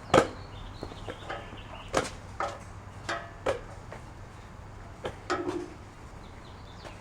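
Scattered clicks and knocks of a screwdriver and metal parts during grill assembly, with a few short squeaks; the loudest knock comes right at the start.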